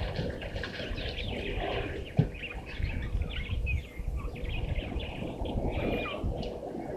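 Several wild birds chirping and whistling over a low wind rumble on the microphone, with a single sharp knock about two seconds in.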